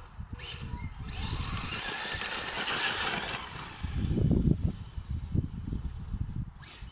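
Traxxas Slash 4x4 brushless RC truck driving over gravel: the electric motor's whine and the hiss of tyres on loose stones rise to a peak about three seconds in, then fall away. Wind buffets the microphone throughout, most strongly about four seconds in.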